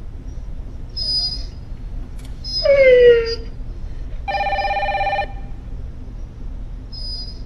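A dog gives a whining cry that falls in pitch, with fainter high squeaks before and after it. Then a telephone rings once, a steady ring lasting about a second.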